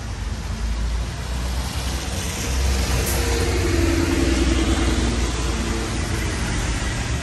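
Road traffic on a wet street: a passing vehicle's engine hum and tyre hiss swell about two and a half seconds in and ease off near the end, over a steady low rumble.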